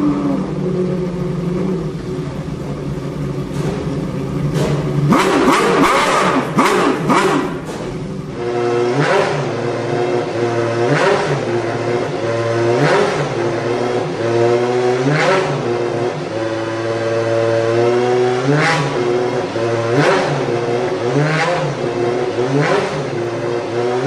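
Two V12 race-car engines in a pit garage. First the Lamborghini Murciélago RS-V's V12 idles steadily and is blipped in quick bursts. Then the Ferrari 550 GT1's V12 is revved sharply and let fall back to idle, over and over, every second or two.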